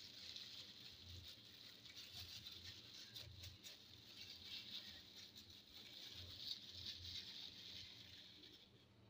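Faint crinkling rustle of thin plastic disposable gloves as the hands roll and press a flatbread wrap, with a few soft clicks. The rustle fades away shortly before the end.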